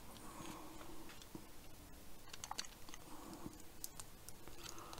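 Faint, scattered clicks and taps of small electronic parts being handled: a transistor being fitted onto its small metal heat sink.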